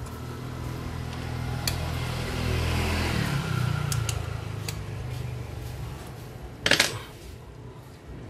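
Small metallic clicks of an Allen key against a stainless-steel motorcycle muffler as its cover screws are worked, then a louder clatter about two-thirds of the way in as the key is put down on the wooden bench. A steady low mechanical hum runs underneath and shifts in pitch about three seconds in.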